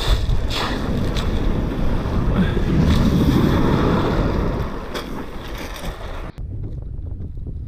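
Surf washing up over a shingle beach, mixed with wind buffeting the microphone. The rush cuts off suddenly about six seconds in, leaving a lower wind rumble.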